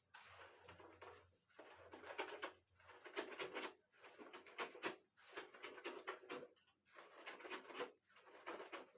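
Hands rubbing and scrubbing long hair: crackly, scratchy rubbing strokes that come in bursts of about a second, with short pauses between them.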